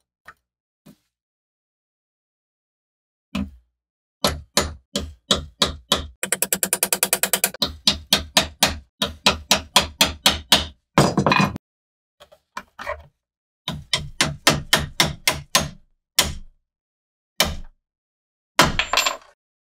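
Hammer blows on the tang of an antique bowie knife clamped in a vise, driving it down through its brass guard to knock the guard off. The sharp strikes begin about three seconds in and come at about four a second, with a fast flurry of rapid taps a few seconds later.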